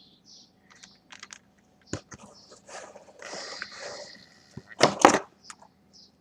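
Handling noises: scattered light clicks and a rustle, then two sharp knocks about five seconds in.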